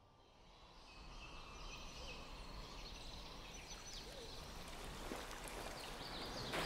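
Forest ambience fading in, with birds calling in short chirps and whistles over a steady hiss that grows louder.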